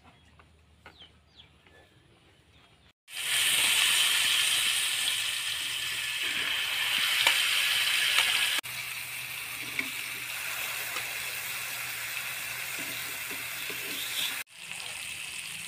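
Ash gourd slices sizzling in hot oil on a flat tawa griddle: a loud, even hiss that starts suddenly about three seconds in and gets somewhat quieter past the middle.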